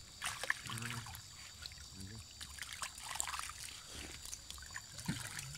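Water trickling and dribbling steadily, with a sharp click about half a second in and faint voices murmuring in the background.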